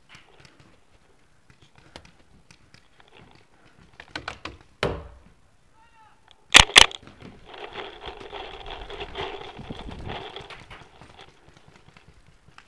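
Two paintball marker shots in quick succession, about a fifth of a second apart. A shorter clatter comes about two seconds before them.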